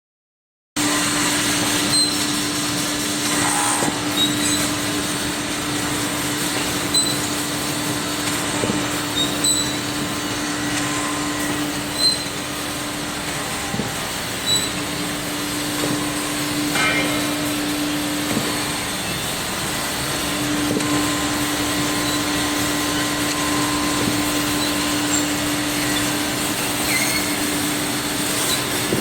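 Automatic wooden hanger drilling and sanding machine running: a steady mechanical noise with a continuous hum that cuts out twice for a second or two, and scattered sharp clicks.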